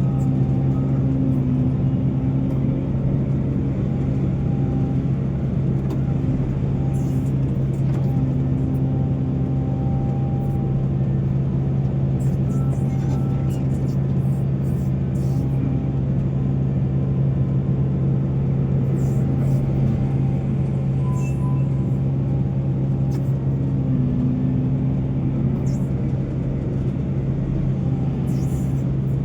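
Heavy diesel mining machinery running steadily: a constant low engine drone that does not rise or fall.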